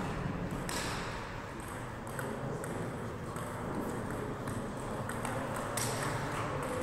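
Table tennis doubles rally: the celluloid-type ball clicking off bats and the table in an irregular run of sharp knocks, in a reverberant gym hall.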